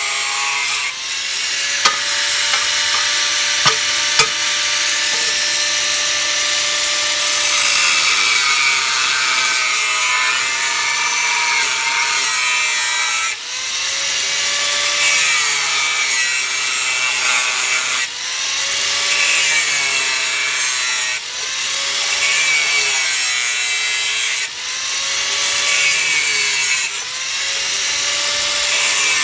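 Handheld angle grinder with a cut-off disc cutting through a metal pipe: a loud, continuous grinding screech, the motor's pitch dipping and recovering several times as the disc bites into the metal, with a few sharp clicks early in the cut.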